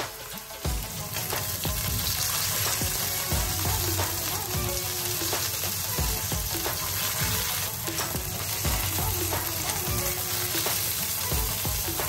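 Bone-in lamb chops sizzling as they fry in a hot pan: a steady, dense sizzle that swells about a second in, with a few light knocks.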